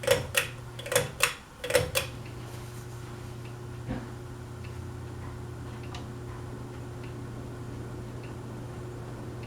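About six sharp clicks in the first two seconds, then the steady low hum of a Harbor Breeze Pulsar ceiling fan's motor running.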